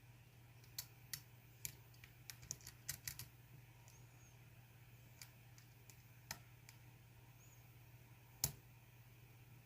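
Faint, sharp metallic clicks of lock picking tools working a GEGE euro cylinder: a quick run of small clicks in the first few seconds, then scattered ticks, with one louder click near the end.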